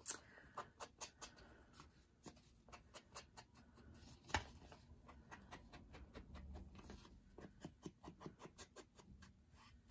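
Foam ink-blending tool dabbed along the edges of a paper tag and tapped on an ink pad, making faint quick taps and scuffs. One louder tap comes right at the start and another about four seconds in.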